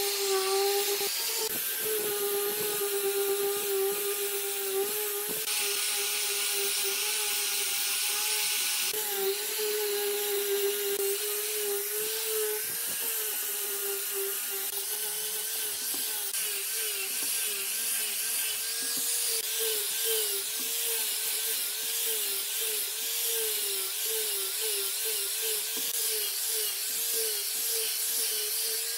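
Angle grinder with a sanding disc running at speed against the edge of a wooden ring: a steady motor whine that wavers slightly as the disc bears on the wood, over the scratchy hiss of the abrasive sanding.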